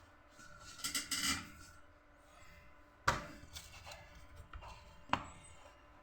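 A brief rubbing, handling noise about a second in, then two sharp clicks about two seconds apart, with a few lighter ticks between them.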